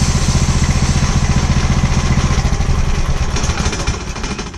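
Gasoline engine of a homemade portable bandsaw sawmill running steadily, then shut off about three and a half seconds in, its pulses slowing as it spins down.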